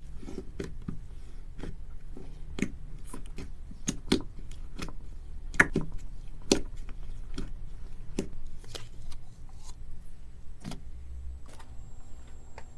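Crunchy slime being squeezed and pressed by hand, giving irregular sharp crackles and pops, a couple of times a second, over a low steady hum.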